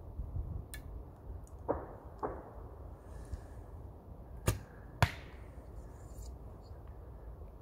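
Oak Ridge Mystic recurve bow shot: two soft knocks come first, then the string snaps sharply on release about four and a half seconds in. A second, louder crack follows about half a second later as the arrow strikes the target.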